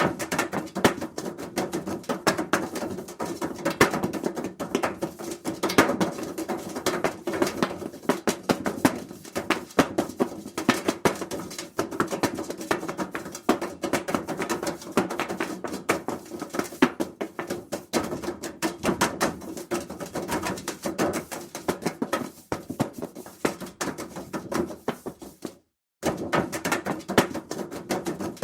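Rapid, irregular impacts and rattles on sheet-metal ductwork, with a hollow ringing resonance from the duct. They break off for a moment near the end, then resume.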